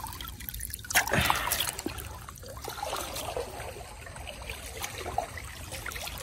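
Shallow river water trickling and sloshing as hands grope through it for freshwater prawns, with one louder splash about a second in.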